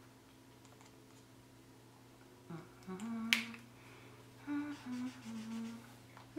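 A woman humming a few short notes of a tune under her breath, in two short phrases. A single sharp click sounds once, in the middle of the first phrase.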